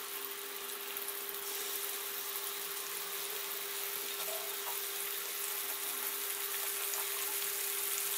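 Beef kababs shallow-frying in oil in a metal karahi: a soft, steady sizzle that grows slightly louder, with a faint steady hum beneath it.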